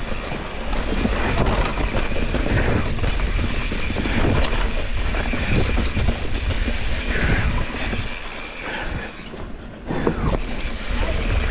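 Mountain bike riding fast down a dry dirt downhill trail: tyres rolling and skidding over loose dirt and roots, with the chain and frame rattling over the bumps and a heavy rumble of wind on the microphone.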